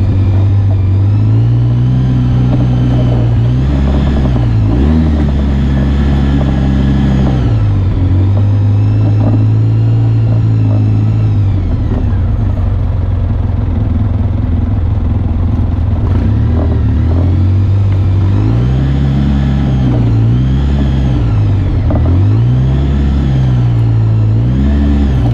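Off-road side-by-side or quad engine running under changing throttle, its pitch repeatedly rising and falling, with a steady stretch partway through and several quick rev-ups and drops near the end.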